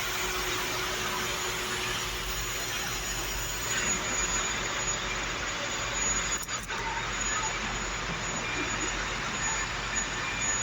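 Steady machinery noise, an even hiss with a faint high whine, briefly interrupted about six and a half seconds in.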